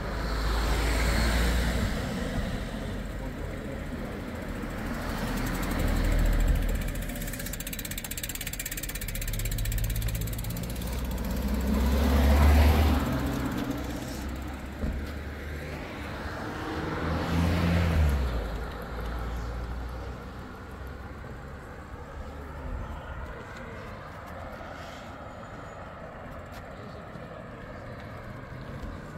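Cars passing on the road one after another, four times in the first two-thirds. Each swells and fades with engine hum and tyre noise, and the last stretch holds only a quieter steady traffic background.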